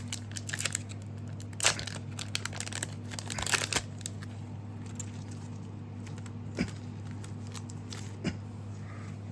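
Foil booster pack crinkling and being torn open, with trading cards handled: short rustles and light clicks, busiest in the first few seconds and sparse after, over a steady low hum.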